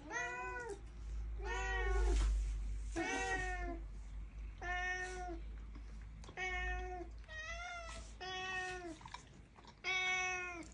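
Domestic cats meowing repeatedly, about eight meows roughly a second or so apart, each rising and falling in pitch; one about two-thirds of the way through wavers up and down.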